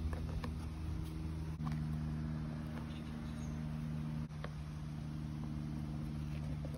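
Steady low hum of an idling vehicle engine, its pitch shifting slightly about a second and a half in and again past four seconds, with a few faint light clicks.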